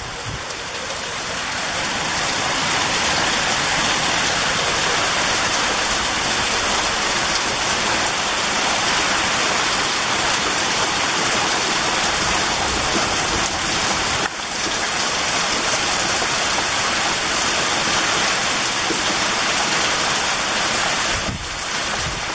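Heavy storm rain pouring down, a loud steady hiss that builds over the first two seconds and eases slightly near the end.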